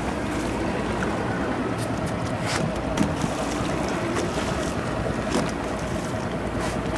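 Motorboat running on open water: a steady rush of engine and water noise with wind on the microphone.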